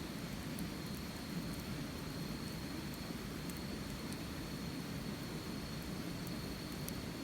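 Campfire burning with a steady low rush and a few faint, scattered crackles.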